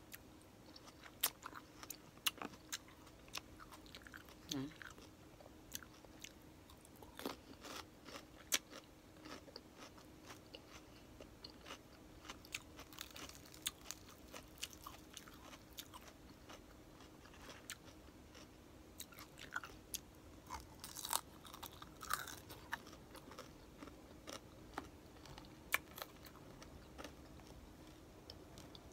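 Chewing and crunching of crispy pata, deep-fried pork knuckle, with irregular sharp crackles throughout.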